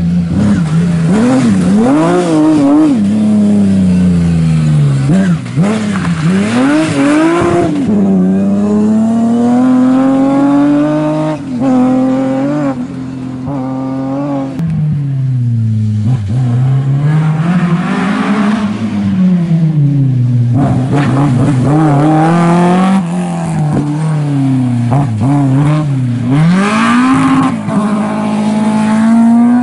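Rally car engine revving hard, its pitch climbing and dropping again and again as it accelerates, changes gear and slows on a wet stage.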